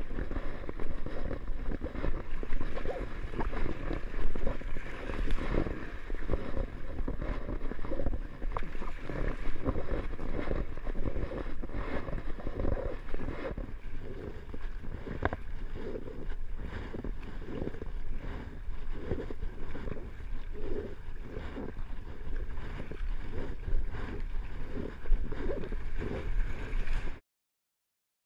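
Wind buffeting an action-camera microphone over water splashing and gurgling against a paddled kayak's hull in choppy water, with splashes coming in a steady rhythm in the second half. The sound cuts off suddenly near the end.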